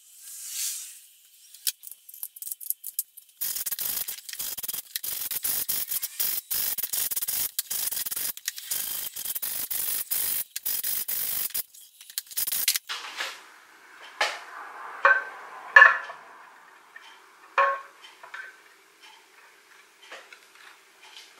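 Steel wire brush scrubbing a ribbed air intake hose in quick back-and-forth strokes for several seconds, then a few sharp metallic clanks as the sheet-metal oil bath air filter housing is handled.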